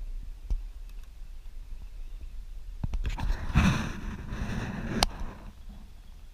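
Spinning reel running for about two and a half seconds, starting about three seconds in, while a hooked fish is played on a bent rod, with a few sharp handling clicks and a low rumble of wind on the microphone.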